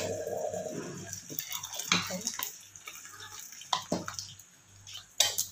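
Hot tempering sizzling in the covered pot, dying away over the first second, then a few scattered clinks and knocks as the metal lid and pot are handled.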